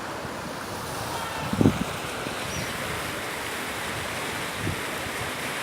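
Waterfall's rushing water, a steady even roar, with a brief low thump about a second and a half in.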